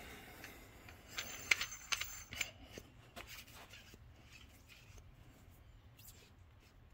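Light clicks and knocks from handling a threaded aluminium coilover shock body and its parts on a workbench, bunched about one to two and a half seconds in, then a few faint ticks and quiet rubbing.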